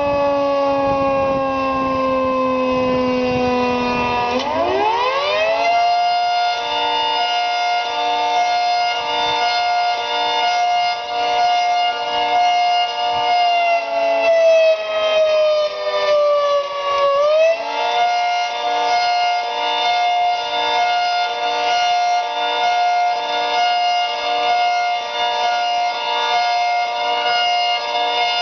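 Federal Signal 3T22 three-tone electromechanical siren sounding a chord. It winds down for about four seconds, spins sharply back up and holds with a pulsing about once a second, then sags in pitch and climbs back up again about two-thirds of the way through. Its intake is blocked, which the owner says gives it the high pitch and pulsing sound when the solenoids are activated.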